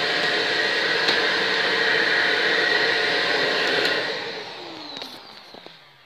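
Shark NV801UKT Lift-Away upright vacuum cleaner running steadily with its hose come loose, not fully pushed in. About four seconds in its motor winds down with a falling whine, followed by a few light clicks.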